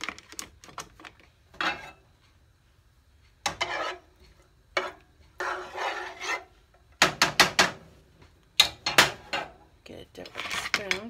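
Spatula scraping and stirring minced garlic around a nonstick frying pan, mixed with intermittent clinks and clatter of pots and utensils. The clicks come in irregular runs, several in quick succession about seven and nine seconds in.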